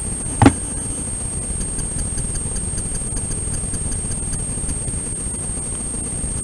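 Steady low rumbling noise with a faint constant high-pitched whine, and a single short knock about half a second in.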